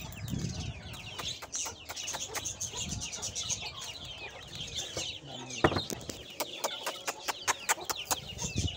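Kept birds calling: chickens clucking amid a busy chatter of quick, high chirps, with scattered sharp clicks.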